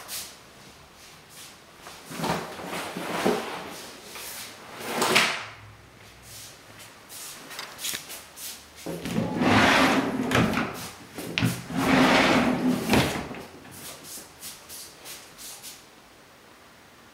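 Closet doors being pulled open: two long sliding, rattling strokes a couple of seconds apart, each with a low rumble, among handling clicks and footsteps. Earlier come a few knocks and a scrape.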